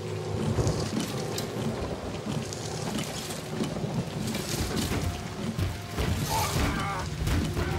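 Heavy rain falling, mixed with a film score of low sustained notes.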